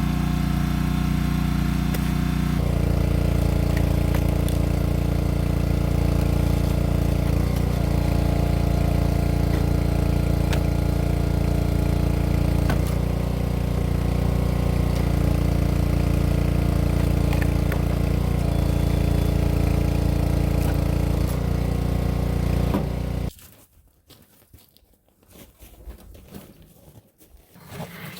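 Small gasoline engine of a 25-ton log splitter running steadily, its note shifting a few times, with a few sharp ticks over it. It cuts off suddenly near the end, leaving only faint scattered sounds.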